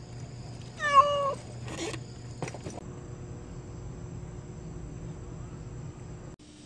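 A stray cat meows once, about a second in: a short call that rises and then falls in pitch.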